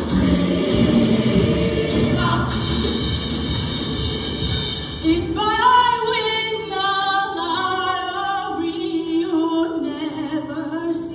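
Show choir performing: the full choir sings with loud, bass-heavy accompaniment, which drops away about five seconds in. A female soloist then sings a held, wavering melody into a microphone over soft sustained notes.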